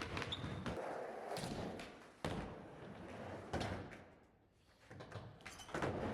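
Skateboard rolling on hard ground, its wheels making a steady rumble, broken by sharp clacks and thuds of the board hitting the ground about three times. The rolling fades out briefly about two-thirds of the way through.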